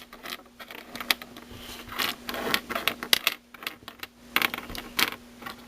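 Loose plastic pieces of a disassembled Meffert's 4x4 puzzle cube clicking and clattering against each other as they are sorted through by hand, in irregular bursts of sharp clicks.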